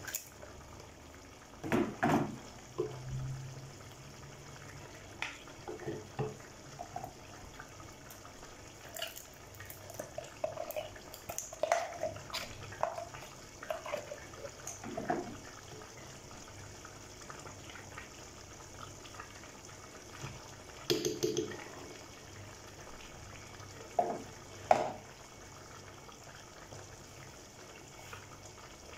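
A large aluminium pot of fumbwa stew bubbling at a simmer, with short knocks and scrapes at irregular intervals as peanut butter is spooned into it. The loudest knocks come about two seconds in and twice more past two-thirds of the way through.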